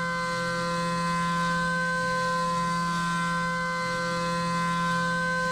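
CNC mill's end mill cutting metal on a 3D adaptive toolpath: a steady singing whine of several held tones that keeps the same pitch throughout. The unchanging pitch is the sign of constant tool engagement, the cutter never taking more material than it can handle.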